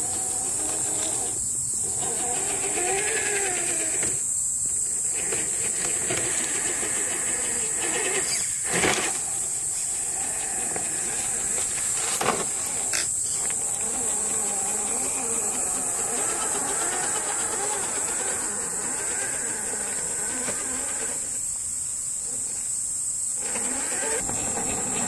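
Axial SCX10 III Jeep Gladiator 1/10-scale RC crawler's electric motor and drivetrain whining, rising and falling in pitch with the throttle as it crawls over rocks, with two sharp knocks. A steady high hiss runs underneath.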